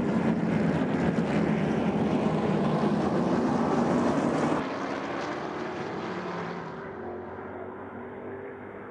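A pack of TA2 race cars' V8 engines running hard, many engine notes blended together. About halfway through it drops suddenly quieter and keeps fading toward the end.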